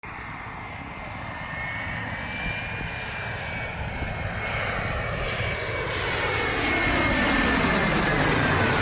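Twin-engine regional jet airliner on landing approach with gear down, passing low overhead: steady engine whine with a high tone that slowly falls in pitch, growing louder toward the end.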